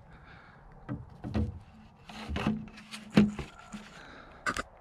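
PVC pipe knocking and rubbing against a car's roof bar as its notched ends are fitted over the bar. There are a handful of separate knocks, the sharpest about three seconds in.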